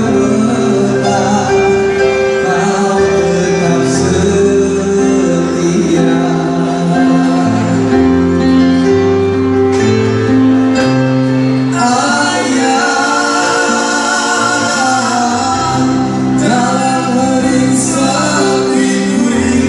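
Live band music amplified through a PA: a man singing into a handheld microphone over violin and keyboard accompaniment.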